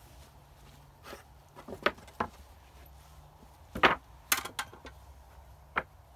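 A series of sharp, irregular knocks and clacks, about seven, the loudest near the middle followed by a quick cluster, over a low steady hum.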